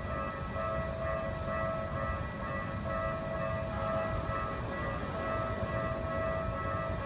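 Japanese railway level-crossing warning bell ringing continuously, a steady ringing alarm tone, over a low rumble.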